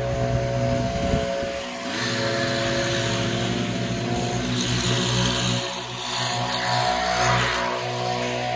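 Stihl BR 800 backpack leaf blower's two-stroke engine running, with a rush of air that swells about two seconds in and eases off near the end.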